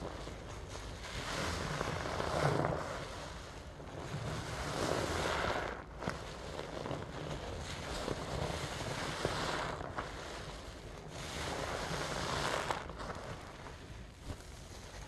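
Sponge squeezed and kneaded in a basin of thick cleaner foam: wet squelching and fizzing of suds, in swells every two to three seconds, with a few small sharp pops, easing off near the end.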